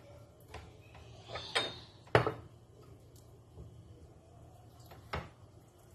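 A few short knocks and clatters of kitchen items set down and handled on a countertop. The loudest comes about two seconds in, with a softer one just before it and another near the end.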